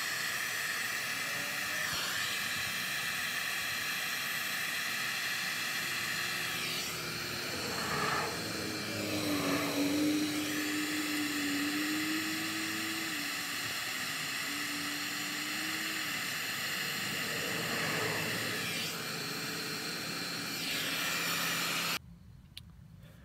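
Electric heat gun running steadily, a whirring fan rush with a steady whine over it, as it shrinks heat-shrink butt connectors on wiring. It cuts off abruptly near the end.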